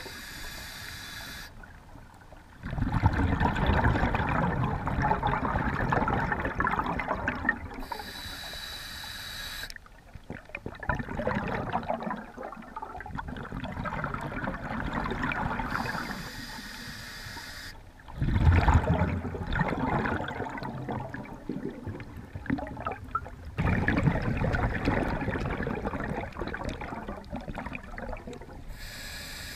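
Scuba diver breathing through a regulator underwater: short hissing inhalations through the demand valve alternate with long gurgling rushes of exhaled bubbles, about four slow breaths.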